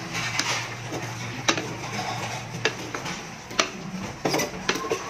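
Wooden slotted spatula stirring chunks of pork in an aluminium pot, with several sharp knocks against the pot at irregular intervals.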